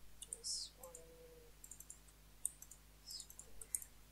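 Faint computer mouse clicks, a scattering of short, sharp ticks at irregular spacing, as faces on a 3D mesh are picked one after another.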